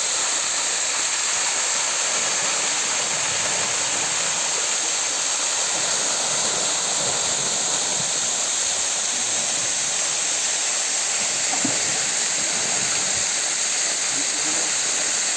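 Waterfall's falling water making a loud, steady rush.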